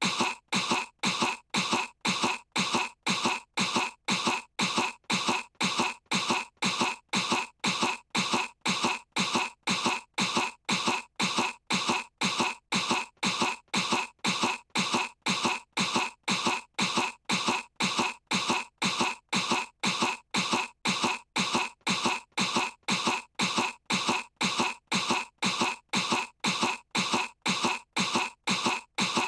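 A cartoon girl's fake, put-on cough, one short cough repeated over and over as a loop at an even pace of about two coughs a second.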